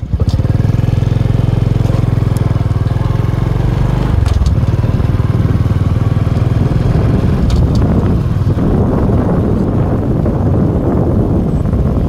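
A small motorbike engine running loud and close, its low, rapid firing pulses steady for the first few seconds and then buried in a noisier rush about four seconds in.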